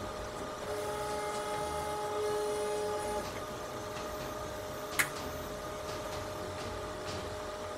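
Steady machine hum of kitchen equipment with a few held tones, one of which drops out about three seconds in. A single sharp click comes about five seconds in.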